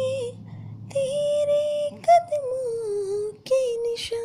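A female voice singing slow, long-held notes of a Hindi Christian worship song, with short breaks between phrases and one phrase gliding downward about halfway through.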